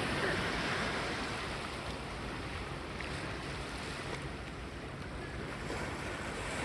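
Sea waves washing onto the shore: a steady surf noise that swells and eases slightly.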